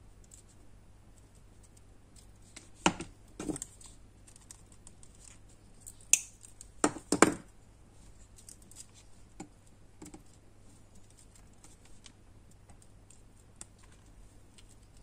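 Small handling sounds of a hot glue gun and paper flowers on a cutting mat: a few sharp knocks and clicks, a pair about three seconds in and a louder cluster around seven seconds, with faint ticks and rustles between.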